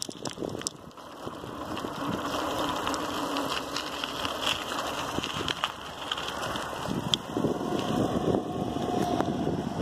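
An engine running steadily, its hum growing stronger in the last few seconds.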